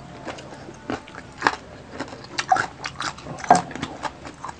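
Close-miked eating: biting and chewing crispy pata (deep-fried pork knuckle) and fried rice, with scattered crackly clicks and sharper crunches about one and a half, two and a half and three and a half seconds in.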